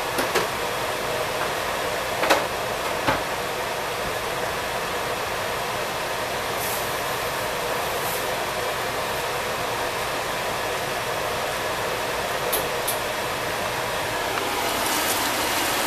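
Beef tips sizzling steadily in a covered pan, with a few sharp pops. Near the end, as the pan's glass lid is handled, the sizzle grows a little louder and more crackly.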